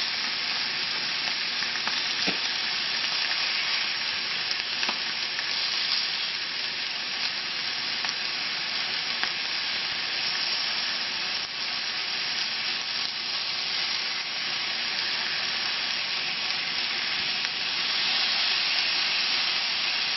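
Marinated chicken breasts sizzling steadily on a hot cast iron grill pan, getting a little louder near the end. A couple of faint clicks come about two and five seconds in.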